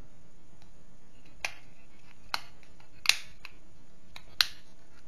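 Sharp plastic clicks from a quartz wall-clock movement's casing being handled and fitted together by hand: four distinct clicks at uneven intervals, with a few fainter ones between.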